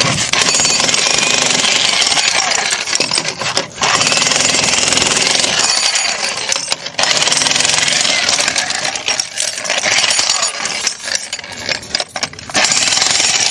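Jackhammer hammering continuously on masonry, with a few brief pauses.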